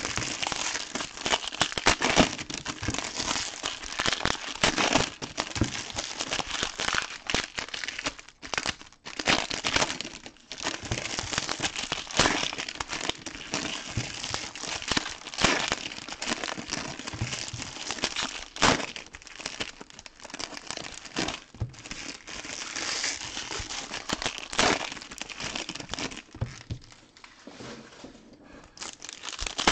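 Foil trading-card pack wrappers crinkling and tearing as packs are ripped open by hand, in a dense run of sharp crackles that eases off for a few seconds near the end.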